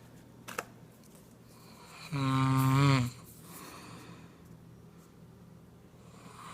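A person snoring: one loud, buzzing snore on the in-breath lasting about a second, dropping in pitch as it ends, with quieter breathing before and after.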